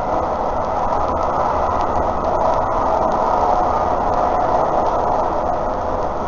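On board a CAF Urbos 3 tram running at speed: a steady rush and rumble of wheels on rail, with a faint steady whine.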